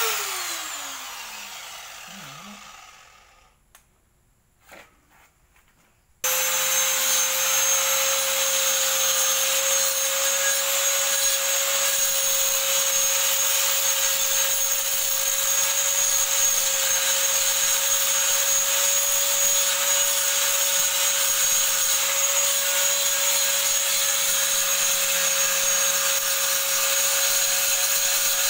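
Electric angle grinder winding down after a brief start, its whine falling in pitch and fading over about two seconds. About six seconds in it starts again and runs steadily, an even whine over a hiss, as the disc grinds the surface of a steel flat bar.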